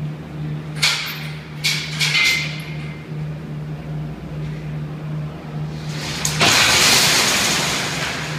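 A few sharp metal clanks as steel pieces of the jig are handled, then, about six seconds in, a loud metal scrape lasting about two seconds as the heavy sheet-steel box starts to tip over on its steel frame jig. A steady low hum runs underneath.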